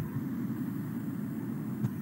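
Steady low rumble, with a short knock at the start and a faint click near the end.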